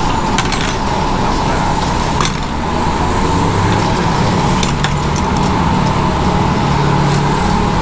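Steady mechanical rumble with a constant hum, broken by a few short, sharp clinks.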